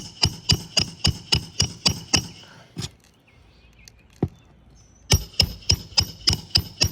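Rapid hammer blows ringing on metal, about three or four a second, during work on an asphalt shingle roof. There is one run of blows, a short pause broken by two single strikes, and then a second run.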